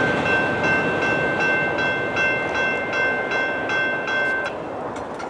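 Railroad crossing bell ringing at about two and a half strikes a second, then stopping about four and a half seconds in. Under it is the fading rumble of the freight train that has just passed.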